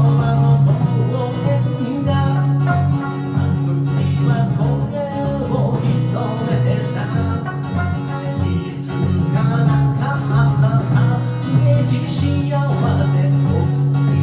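Electric sanshin plucked, playing a melody over an accompaniment with a held low bass pattern.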